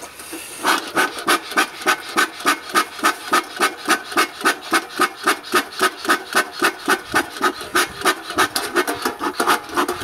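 Bee smoker bellows pumped quickly and evenly, each stroke a short puff of air forced into a bed of live charcoal, about four puffs a second. The air is being used to drive the fire's heat into the centre of a hollowed stump to burn it out.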